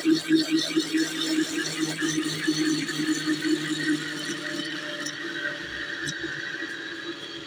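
Electric blender motor running continuously while oil is trickled in to emulsify milk and lemon juice into eggless mayonnaise. Its hum pulses about four times a second at first, then settles into a steadier, gradually quieter drone.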